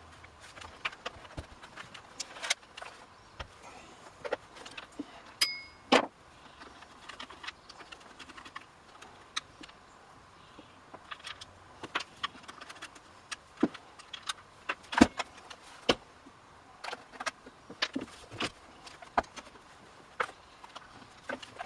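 Irregular clicks, taps and clinks of hand tools and small metal and plastic parts being handled while a chainsaw is taken apart, with a brief metallic ring about five and a half seconds in.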